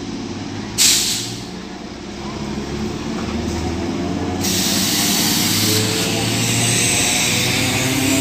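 Electric multiple-unit suburban train pulling away: a sharp burst of air hiss about a second in, then low electric hum as it gathers speed. From about halfway a loud steady rushing hiss sets in as the coaches roll past.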